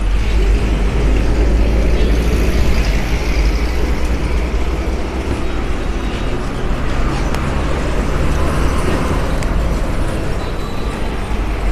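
Steady low rumble of road traffic, with a few faint clicks from handling.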